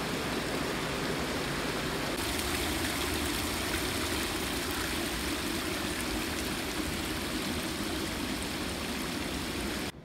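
Water running and splashing down a steep rock face in a small cascade, a steady rush that cuts off suddenly near the end.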